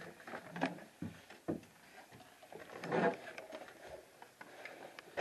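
Rustling and light knocks from a camera being handled and moved in a small enclosed space, with a louder rustle about three seconds in.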